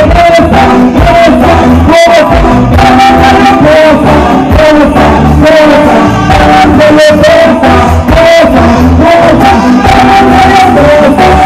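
Live concert music played loud: a man sings into a microphone over a band with a steady drum beat and heavy bass.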